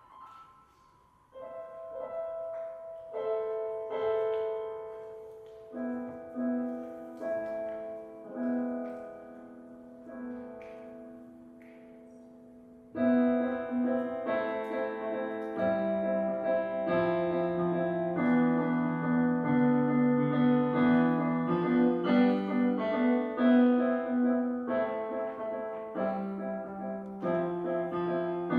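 Instrumental music on a keyboard. A quiet, sparse melody of held notes starts about a second in, and about halfway through the playing becomes suddenly louder and fuller, with a lower bass line underneath.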